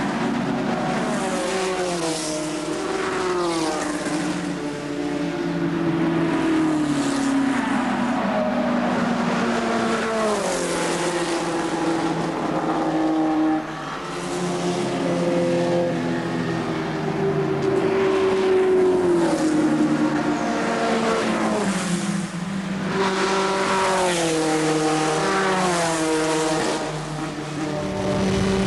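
Racing car engines running hard as the cars pass one after another, each pass a high engine note sliding down in pitch, with level stretches and rising revs between.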